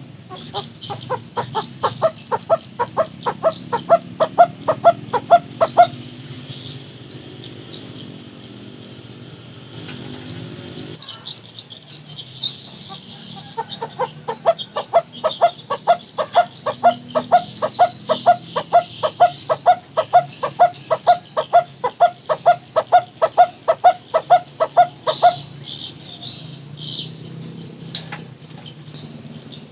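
Barbet (burung takur) giving its 'teguk teguk' call: a long series of short hollow notes repeated about three times a second. It comes in two runs with a pause of several seconds between them. Other small birds chirp higher and fainter behind it.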